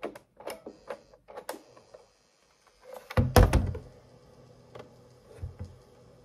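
Auna RQ 132USB cassette player's mechanical keys being worked: a few light clicks, then about three seconds in one loud clunk as a key is pressed down and latches, after which a faint steady hum of the tape mechanism running follows.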